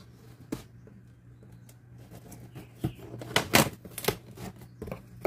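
A cardboard shipping box being worked open by hand: scattered knocks, clicks and scrapes, a few at first and then a loud cluster about three and a half seconds in.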